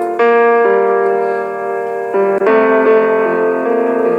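Calm piano music: sustained chords, each change struck and left to ring, slowly fading near the end.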